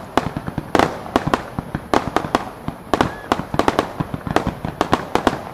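Starmine fireworks display: shells launched and bursting in rapid succession, an irregular string of sharp bangs and pops several a second over a continuous crackling hiss.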